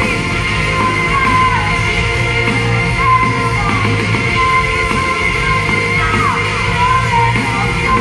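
Live rock band performance: a woman singing lead in a strong voice over her strummed acoustic guitar and the band, with a steady low bass line underneath.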